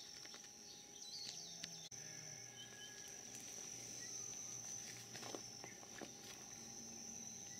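Faint outdoor ambience: a steady high insect chirring, with a few soft clicks and rustles of the pineapple plant being handled.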